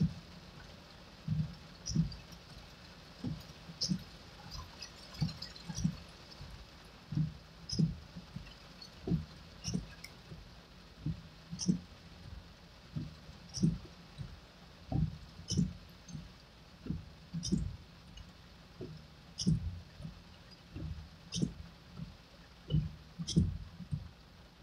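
Car windshield wipers sweeping back and forth, a pair of thumps with a sharp click about every two seconds, over a steady hiss of heavy rain on the car.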